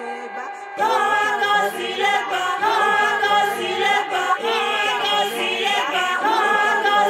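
Music: a layered, choir-like chant of several voices comes in suddenly about a second in, louder than the quieter music before it, and carries on.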